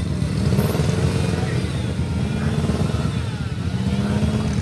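A vehicle engine running under load at an off-road climb, its pitch rising and falling a little as it revs.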